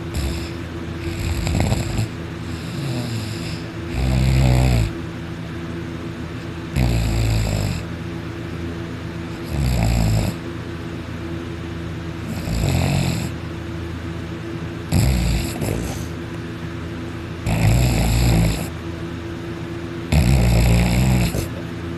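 A person asleep and snoring very hard, one loud snore about every two to three seconds.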